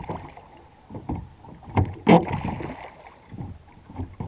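A small dinghy being rowed with wooden oars in metal rowlocks: a steady rhythm of strokes, each a knock of the oars in the rowlocks with the blades dipping into the water, the loudest about two seconds in.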